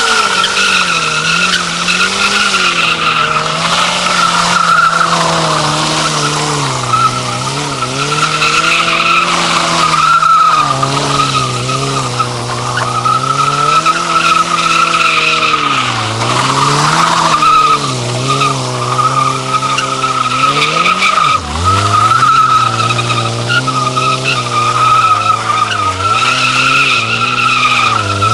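Sport motorcycle engine held at high revs during a burnout, the spinning rear tyre squealing steadily against the pavement. The revs rise and dip again and again, with one sharp drop and recovery about three quarters of the way through.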